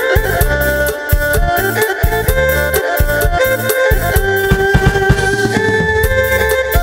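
Korg Pa700 arranger keyboard playing a Khmer-style accompaniment: a steady drum and bass rhythm under a sliding, ornamented lead melody in a bowed-string or reed voice.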